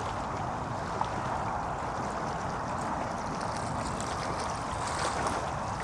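Steady rush of distant road traffic, an even, continuous hum with no single vehicle standing out.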